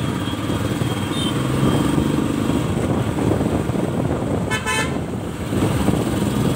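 Motorcycle engine running steadily while riding in traffic, with a vehicle horn honking once, for about half a second, a little past the middle.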